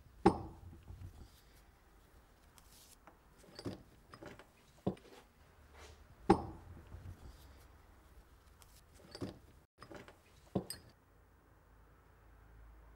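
Hand tools being set down on a wooden workbench: about half a dozen separate knocks and clinks, the loudest about six seconds in as a mallet is put down.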